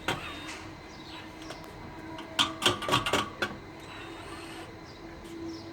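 Sharp plastic clicks and knocks from handling a pleated fly-screen door and its frame: one knock at the start, then a quick cluster of clicks about two and a half to three and a half seconds in, over a faint steady hum.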